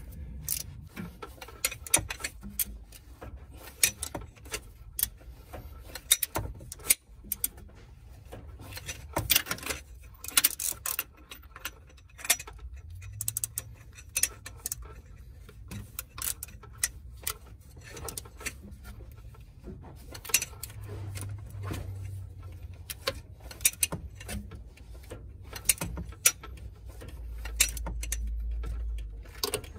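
Ratchet wrench with an 18 mm socket clicking in irregular runs as it turns the crankshaft pulley bolt by hand, turning the engine over to walk the stretch-fit A/C belt onto its pulley.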